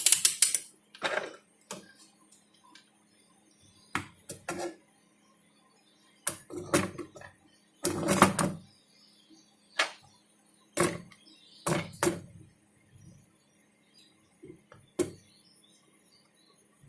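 Handling noise on a workbench: scattered sharp clicks and knocks, some in quick pairs, as tools and a circuit board are picked up and put down. A faint steady hum runs underneath.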